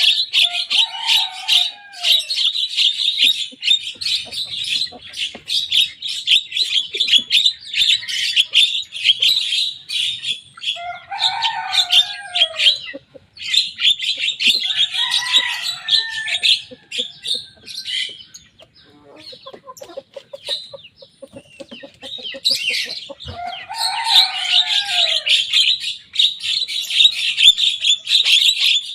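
Young Javan myna singing hard: long runs of rapid, harsh chattering broken every few seconds by lower, down-slurred calls, with a brief lull about two-thirds of the way through.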